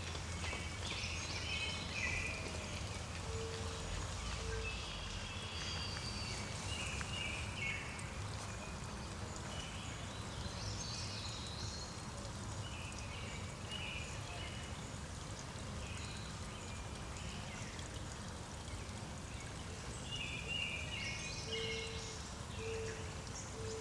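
Outdoor ambience: birds singing off and on over a steady low rumble, with a short run of low notes about three seconds in and again near the end.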